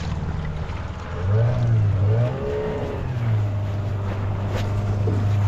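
Outboard motor running at low speed, then throttled up about a second in; its pitch rises, falls back briefly and from about three seconds in holds steady at a higher speed.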